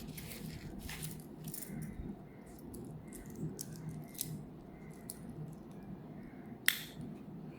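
Metal President-style bracelet of a Seiko 5 watch clinking faintly as the watch is handled: scattered light clicks, with one sharper click near the end.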